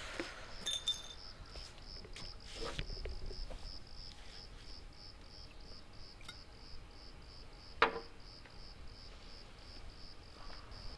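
A cricket chirping steadily, about three chirps a second. A few scattered knocks and one sharper click about two-thirds of the way through.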